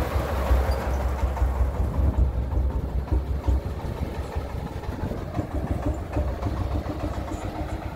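Engine of a homemade mobile rice-mill vehicle running as it drives off, its strong low hum weakening about three and a half seconds in as it moves away.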